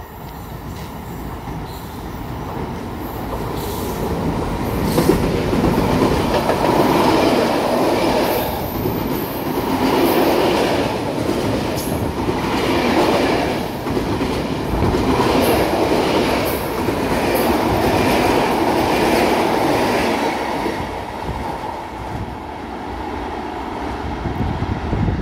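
Freight train hauled by an E494 electric locomotive passing through a station. The rumble builds over the first few seconds as it approaches, then a long line of freight wagons rolls by with a clatter that swells and eases every two or three seconds, and it fades near the end.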